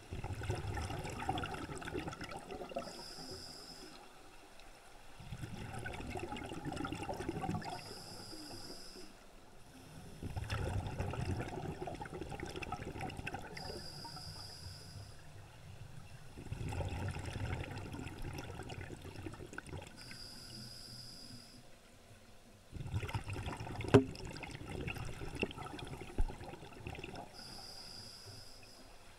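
Scuba diver breathing through a regulator, heard underwater: about five breaths, each a short high hiss on the inhale followed by a longer low rush of exhaled bubbles. One sharp tap about three-quarters of the way through.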